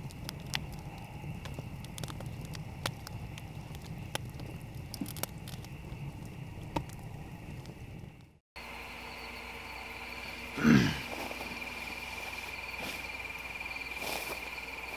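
Wood campfire burning, with irregular sharp crackles and pops over the low rush of the flames. After a sudden cut, insects trill steadily at one high pitch, and one short, loud sound drops quickly in pitch about two seconds after the cut.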